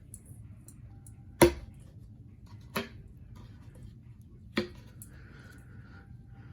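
Sharp knocks and clacks from handling a ceiling fan's blades while reversing their pitch: a loud knock about a second and a half in, two more about every second and a half after it, and lighter ticks between them, over a low steady hum.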